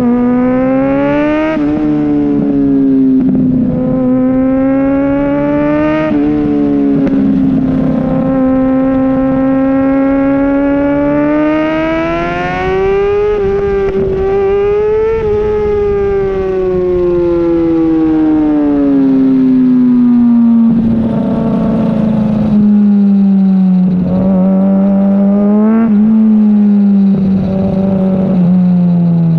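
Kawasaki Ninja ZX-6R inline-four engine under way, its note climbing and dropping sharply several times as it shifts up through the gears. It then falls slowly over the second half as the bike slows.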